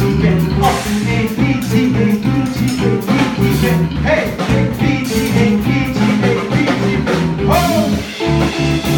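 Live band playing a groove on electric guitar, bass and drums, with a short break about eight seconds in before it carries on.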